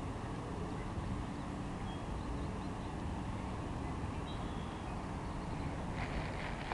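Steady low outdoor rumble, with a few faint short high chirps about two and four seconds in and faint clicks near the end.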